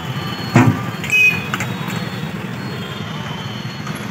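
Street background of traffic rumble, with a sharp knock about half a second in and a brief high-pitched tone just after a second.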